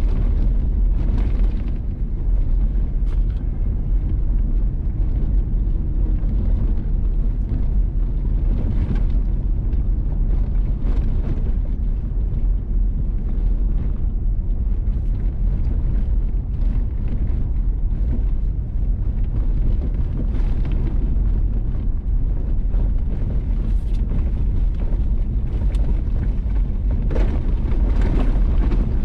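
A vehicle driving on a gravel road: a steady low rumble of tyres and engine, with scattered short crackles of gravel under the tyres.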